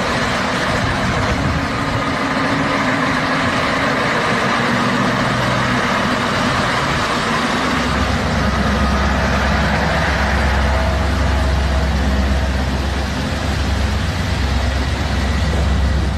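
Heavy diesel transport trucks running steadily, with a deeper, steadier engine hum from about halfway through.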